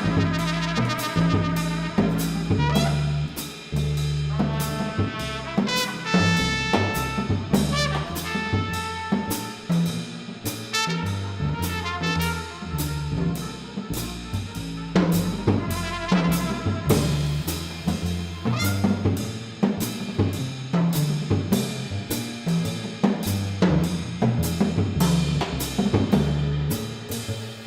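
Live jazz from a trio: a trumpet-family horn playing a melodic line over double bass and drum kit. The horn thins out about halfway through, leaving mostly bass and drums.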